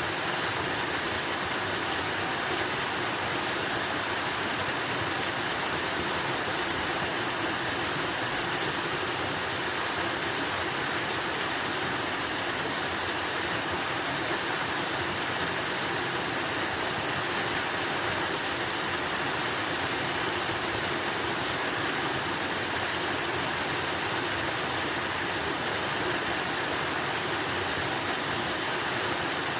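Water rushing steadily, an even unbroken hiss with no splashes or changes.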